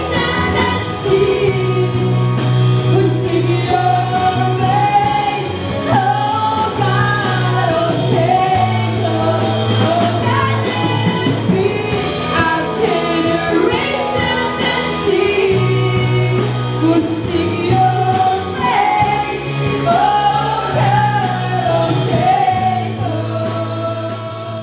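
Worship band playing live in a hall: women singing the melody into microphones over drums with cymbals, electric guitar and keyboard, the music starting to fade near the end.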